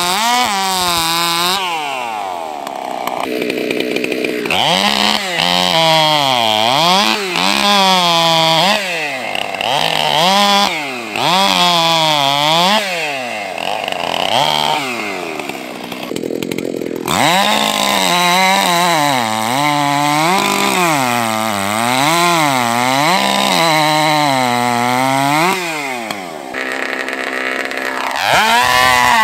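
Unlimited-class racing chainsaws at full throttle cutting through a timber cant. The engine pitch sags and climbs back over and over as the chain bites into the wood and clears the cut. The sound changes abruptly a few times as one saw's run gives way to another's.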